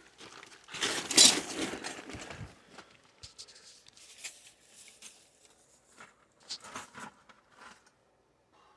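Handling noise of work on a plumbing valve: a loud rustling scrape about a second in, then light scattered clicks and taps of tools on metal.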